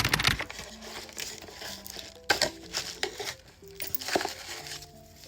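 Packaging crinkling and rustling as a parcel is unboxed by hand, with a couple of sharp clicks, over faint soft music.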